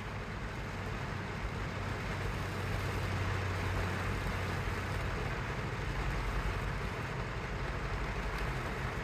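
Steady rain falling on a vehicle's roof and windows, heard from inside the cabin, over a low steady hum.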